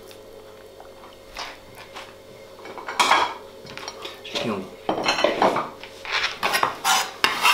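Kitchenware being handled: a few sharp clinks and knocks, the loudest about three seconds in, then a quick run of them near the end.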